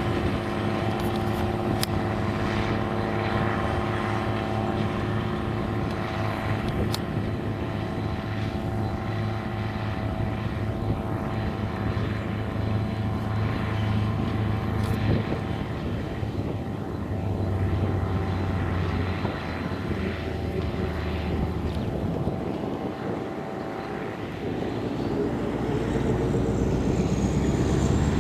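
Belarus MTZ 3022 tractor's diesel engine running steadily under load while pulling a disc harrow through the soil. It grows louder in the last few seconds as the tractor comes closer, and a thin rising whine appears near the end.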